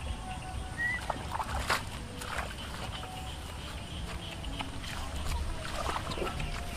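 Hands groping in a shallow, muddy water channel while feeling for catfish, with scattered small splashes and sloshes.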